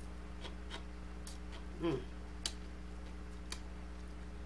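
Eating sounds while picking at and chewing fried fish by hand: a few faint, scattered mouth clicks and smacks, with a short hummed 'mm' about two seconds in, over a steady low hum.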